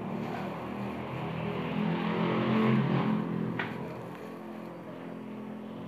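A motor vehicle's engine passing by, swelling to its loudest about halfway and then fading, with a single sharp click just after the peak.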